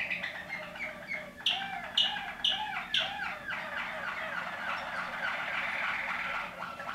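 Waterslager canary singing: four sharp falling notes about half a second apart, each with a lower deep note under it, then a fast rolling run of short notes.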